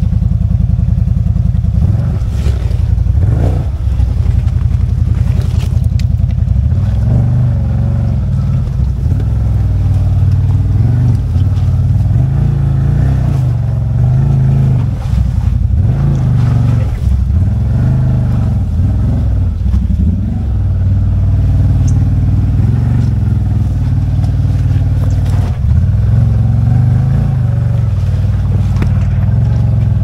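CFMOTO ZFORCE 950 side-by-side's V-twin engine running under load, its pitch rising and falling with the throttle, with a few scattered knocks from the machine over rough ground.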